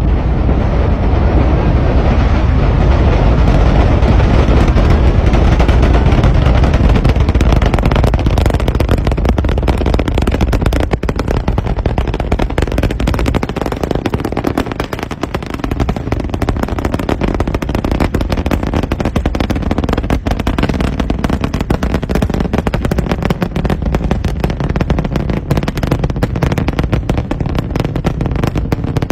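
SpaceX rocket engines heard from the ground during ascent: a loud, continuous low rumble full of rapid crackling and popping. It grows slightly fainter after about twelve seconds as the rocket climbs away.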